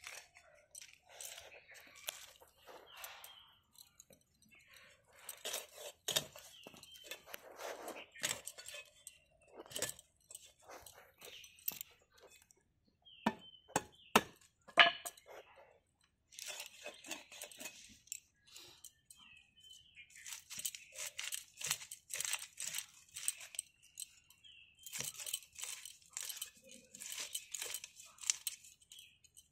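A bhetki (barramundi) being scaled and cut on a bonti, a curved fixed blade: clusters of quick, crisp rasping and crunching strokes as scales and flesh are worked against the blade. A few sharp clicks come about halfway through.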